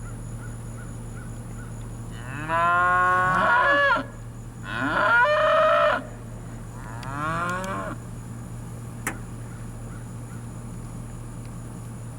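Cattle mooing: three calls, the first two long and loud, coming about two and four seconds in, and a shorter, quieter one about seven seconds in. A steady low hum runs beneath them.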